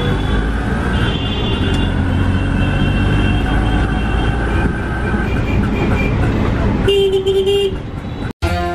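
Auto-rickshaw engine running with a steady low rumble in street traffic while vehicle horns honk: a long horn blast from about a second in to about six seconds, and another loud horn near the end. The sound then breaks off abruptly.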